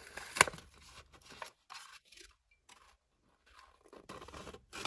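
White paper wrapping rustling and crinkling as it is unfolded and peeled apart by hand, in short, broken-up bursts. A single sharp tap about half a second in.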